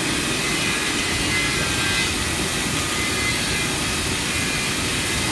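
CNC router machining a melamine-faced chipboard panel, its spindle and dust extraction running as a steady, loud rushing noise with a faint high whine.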